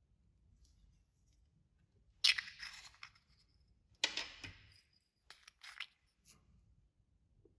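Clear slime with glitter mixed in being squished and pressed by hand: two sharp crackly squelches about two and four seconds in, each trailing off, then a few short pops.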